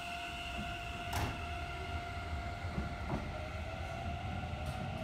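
Keikyu 1000 series electric train with a steady electrical whine over a low rumble; the whine dips slightly about three seconds in and then slowly rises. A sharp click about a second in and another near the end.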